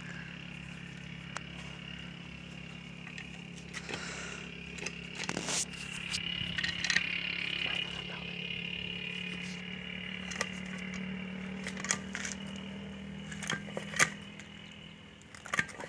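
Excavator engine running steadily, with scattered sharp clicks and knocks. It is a little louder for a couple of seconds about six seconds in.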